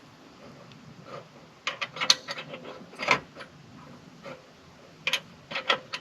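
Scattered sharp metallic clicks and knocks from handling the parts of a trailer tongue jack, in a few short clusters.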